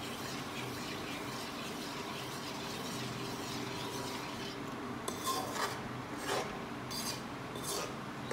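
A spoon scraping and stirring whole wheat flour roasting in ghee in a metal kadhai. The scraping is a low steady rasp at first, then turns into distinct strokes about five seconds in, roughly one or two a second.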